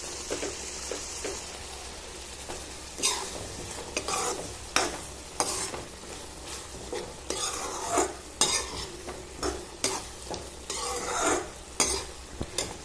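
Metal ladle stirring and scraping through thick, just-boiled garlic kulambu in a metal kadai, in irregular strokes from about three seconds in.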